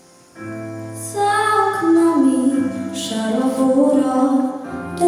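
A girl singing a slow song into a microphone over an instrumental accompaniment. A held chord of the accompaniment starts just under half a second in, and her voice enters about a second in with a wavering, sustained melody.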